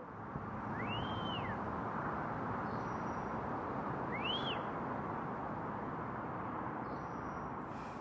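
Steady distant city noise heard from above the city. Two faint, high calls rise and fall over it, about one second and four seconds in.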